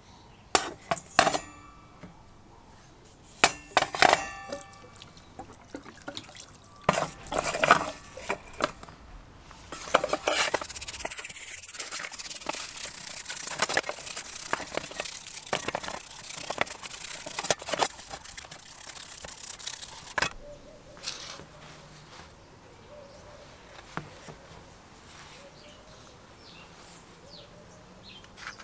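Metal drill parts clinking and knocking against a stainless steel bowl, the sharper knocks ringing briefly. About ten seconds in, a longer stretch of liquid pouring into the bowl with parts clinking through it, then quieter handling of the parts.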